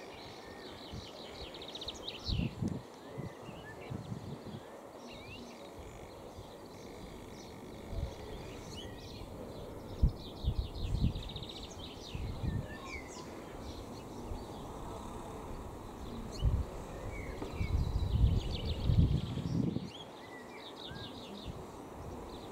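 Small songbirds singing in runs of rapid high trills, with irregular low rumbling thumps of wind buffeting the microphone; the loudest thumps come about ten seconds in and near the end.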